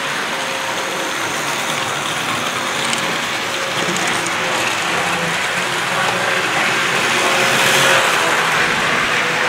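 Several Hornby Triang OO-gauge model trains running at once: a steady whirr of electric motors and rattle of wheels over track joints, with a faint steady motor whine. It swells around eight seconds in as a Pullman set passes close.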